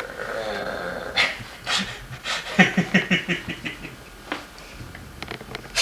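Miniature schnauzer puppy making noises while playing: a faint whine at first, then a quick run of short low growls about two and a half seconds in, among sharp clicks.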